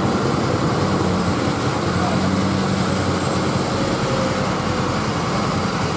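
Heavily loaded multi-axle goods lorry's diesel engine running steadily at low revs as the truck crawls through soft mud, with a low, even engine drone.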